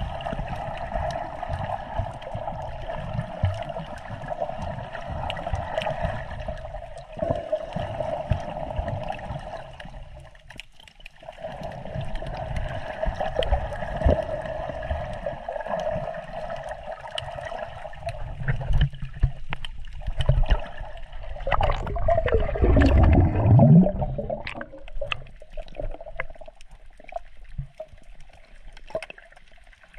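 Water gurgling and sloshing around a camera held underwater while snorkelling, with a steady hum throughout. A louder gurgle with a falling pitch comes about two-thirds of the way in.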